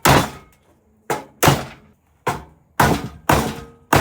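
Makeshift hammer striking the sheet-steel of a computer case to bend metal out of the way: about seven hard, irregularly spaced thunks, each with a short ring.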